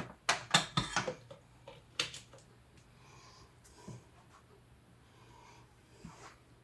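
Several short knocks and clatters, bunched in the first second, with another about two seconds in and a few fainter ones later, over a faint steady low hum.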